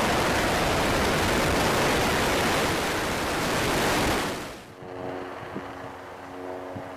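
Roar of the SpaceX Falcon 9 rocket's engines just after liftoff: a loud, even rushing noise that cuts off abruptly about four seconds in. A much quieter steady hum with a few faint clicks follows.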